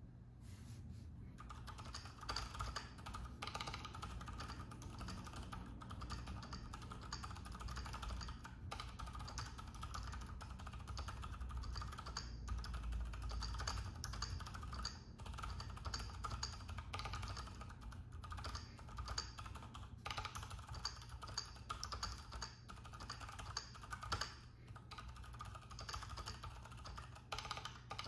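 Typing on a Keychron Q6 full-size mechanical keyboard fitted with Keychron K Pro Silent Brown switches: a steady run of quiet keystrokes, cushioned at the bottom of each press and making little noise on the return, starting about a second and a half in.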